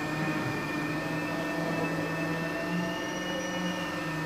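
A steady electrical or mechanical hum over background hiss, with no distinct events.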